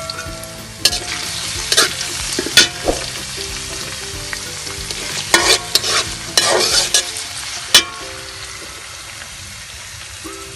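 Chopped onions, garlic and dried red chillies sizzling in hot oil in a pan, stirred with a spatula that scrapes and knocks against the pan. The stirring stops about eight seconds in and the frying goes on.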